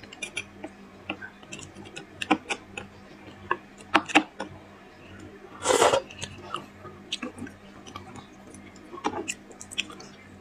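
Close-miked eating: a metal spoon clicking and scraping against a roasted beef bone as marrow is scooped out, with lip smacks and chewing. A louder noisy slurp comes just before six seconds in, as the spoonful of marrow reaches the mouth.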